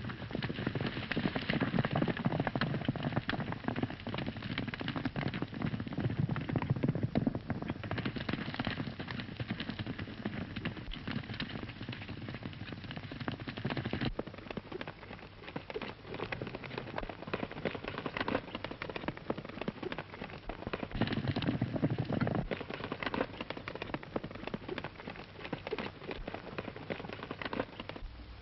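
Horses galloping on a dirt trail: a dense, rapid clatter of hoofbeats that swells and fades as the riders pass.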